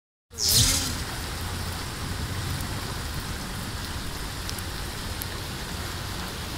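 Heavy rain falling steadily on a flooded street, with a low rumble underneath. The sound cuts in abruptly just after the start with a brief louder burst, then settles into the steady rain.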